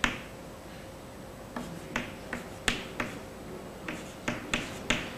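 Chalk tapping and scraping on a blackboard as a curve and its arrowheads are drawn: a series of short, sharp clicks, about eight of them, starting about a second and a half in.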